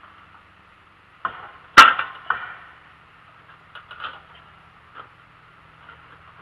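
Metal clanks and knocks from a homemade lawn-tractor sleeve hitch as its lift handle is worked to raise a box scraper. There is a cluster of knocks with one loud clank about two seconds in, then a few lighter knocks, over a faint low hum.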